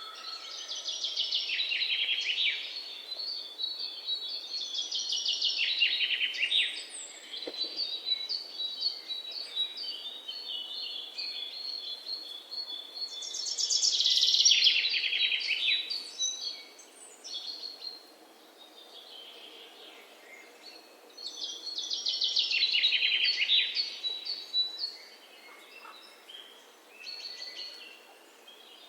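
Birds singing: loud, fast-trilling phrases of about two seconds recur every several seconds over steady, high chirping.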